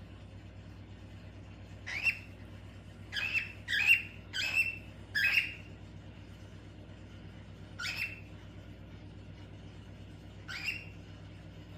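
Pet cockatiel calling: seven short, shrill, upward-sweeping calls. There is a single call about two seconds in, a quick run of four, then two more spaced out near the end.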